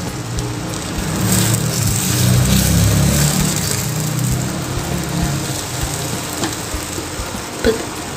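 Beaten egg sizzling as it fries in oil in a nonstick pan. A wooden spatula scrapes through it to break it into big pieces, with a sharp tap near the end.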